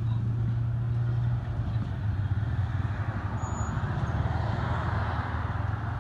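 A steady low engine hum, with a rushing noise that swells about three to five seconds in.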